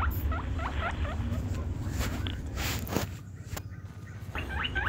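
Battery-operated toy rabbit giving out its electronic sound effect: quick rising squeaks repeating about three or four times a second over a low hum. The squeaks break off after about a second, leaving a few clicks and a soft rustle, then start again near the end.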